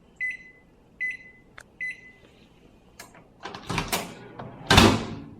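Panasonic microwave oven beeping three times, then knocks and a loud clack as its door is opened. A low hum starts right after: the oven switching itself on with the door open, the fault of a failing door interlock switch.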